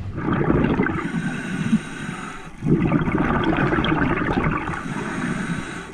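Underwater bubbling and gurgling of a scuba diver's exhaled air from the regulator, in two long stretches with a short break about two and a half seconds in.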